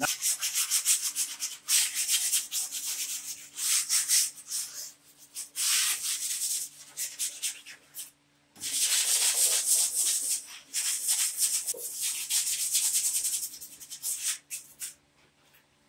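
Sandpaper rubbed by hand over the rusty steel rear fender of a John Deere LA100 riding mower, scuffing off flaking paint and rust before priming. It comes in long runs of quick back-and-forth strokes, with a short break about halfway through, and stops shortly before the end.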